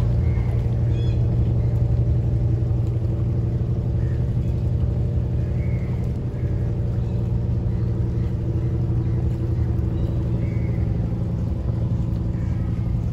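Boat engine idling at the jetty: a steady low drone that holds the same pitch throughout.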